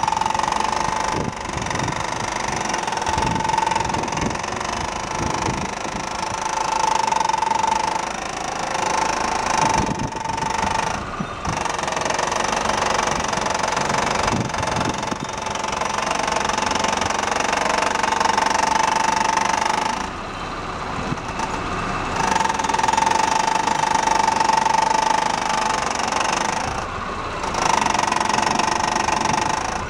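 A first-generation Ford Focus engine running at idle, with a steady mid-pitched whine that fades in and out every few seconds over irregular low knocking.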